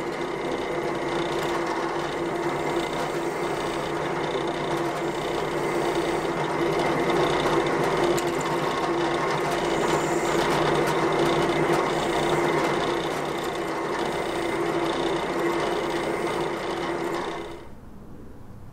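Drill press running steadily with a constant motor hum while drilling pin holes through G10 knife handle scales; it stops near the end.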